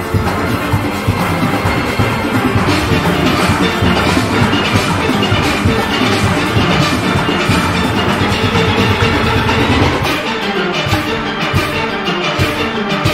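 A steel orchestra playing, with massed steelpans over drums and percussion; the lowest notes thin out about ten seconds in.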